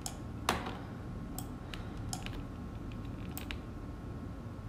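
Scattered clicks from a computer mouse and keyboard, about eight in all, the loudest about half a second in, over a low steady hum.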